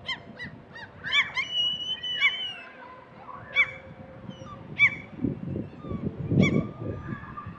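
Gulls calling: short, arched cries repeated every second or so, with one held high note about a second in. A low rushing noise swells about five seconds in.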